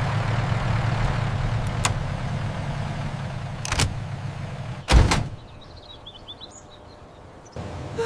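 A vehicle engine rumbling steadily and slowly fading, with a heavy door slam about five seconds in, then quieter background.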